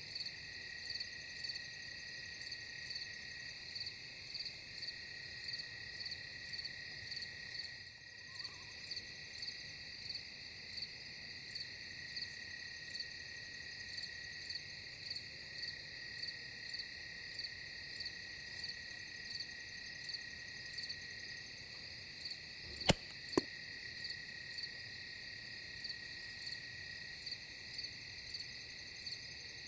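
Night insects chirping in a steady chorus, pulsing a little over once a second. About three-quarters of the way through come two sharp clicks about half a second apart.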